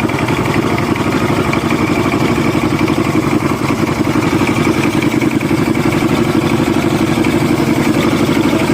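Yamaha 200 hp outboard motor running steadily at a constant speed on a test run.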